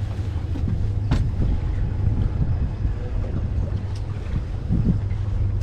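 Wind buffeting the microphone, a steady low rumble, with a sharp click about a second in.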